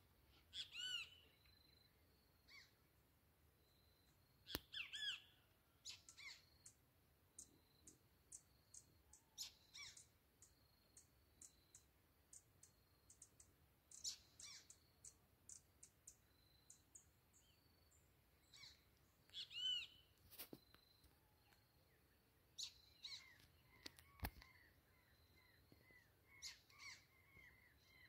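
Faint birdsong in scrubland: scattered chirps and squawky sweeping calls, over a short high note repeated again and again, with a quick run of calls near the end. Two sharp clicks stand out, one about five seconds in and one near the end.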